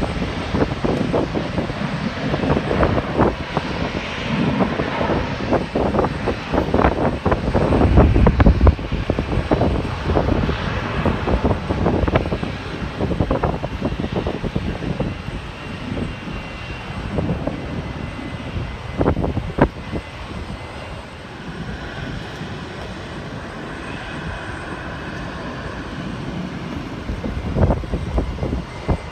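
Jet airliner engine noise mixed with gusty wind buffeting the microphone. The buffeting is heaviest in the first third. A faint steady engine whine shows later on.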